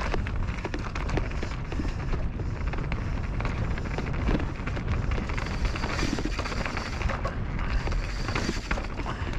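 Wind buffeting an action camera's microphone on a fast downhill mountain-bike run, with tyres running over dirt and rocks and scattered knocks and rattles from the bike.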